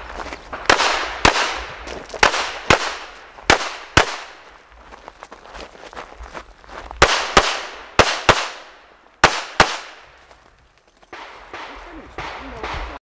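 Smith & Wesson M&P9 Pro 9mm pistol firing twelve shots in six quick pairs, two shots per target, each shot cracking sharply and ringing out briefly.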